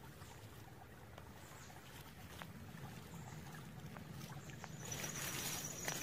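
Faint rustling with scattered small clicks, as of a person moving a handheld camera among leaves and stems in forest undergrowth; a thin, steady high tone comes in for about the last second.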